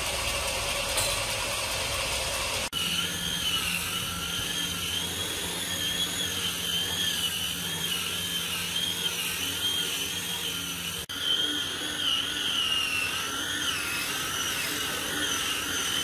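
Electric angle grinder with a sanding disc whining as it sands solid wood, its pitch wavering up and down as the disc is pressed and moved over the plank. For the first few seconds, before it starts, there is only a low steady rumble.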